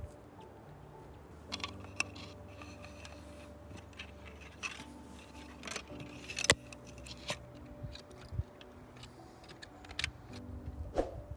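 Light knocks and clicks of peeled wooden sticks being laid and shifted on a log seat frame, with one sharper click a little past the middle. Faint music sits underneath.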